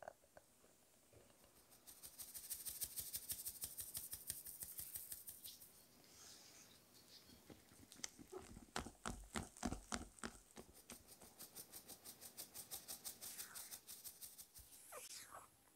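Flour and cocoa being stirred into thick cake batter in a glass bowl with a silicone whisk and a spatula, making faint, quick, even stirring strokes. Around the middle come a few heavier, uneven strokes and scrapes.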